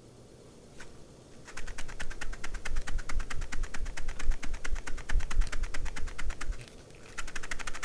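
Fast typing on a WLmouse Ying75 hall-effect mechanical keyboard with TTC Shadow switches and double-shot PBT keycaps on an aluminium plate. One keystroke about a second in, then quick, continuous key presses for about five seconds, a brief pause, and typing again near the end.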